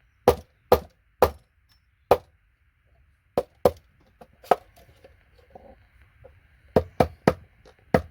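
Hammer striking a paint scraper to knock gold-plated pins off scrap computer connectors: a run of sharp metallic taps, irregularly spaced, with a quieter stretch in the middle and quicker taps near the end.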